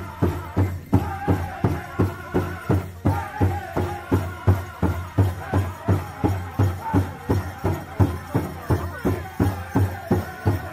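Powwow music: a big drum struck by a drum group in a steady, even beat of about three strikes a second, with a group of singers singing over it.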